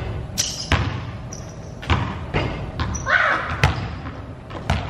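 Basketball bouncing on a hardwood gym floor: about six sharp thuds at uneven spacing, each echoing in the large hall.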